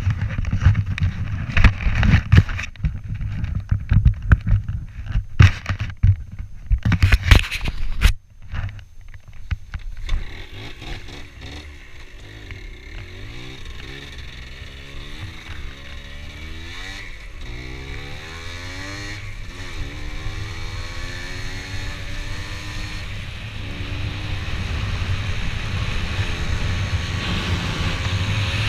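Loud, irregular bumps and rumbles for about eight seconds, then a motor vehicle engine running, its pitch rising and falling as it revs up and eases off, getting louder toward the end.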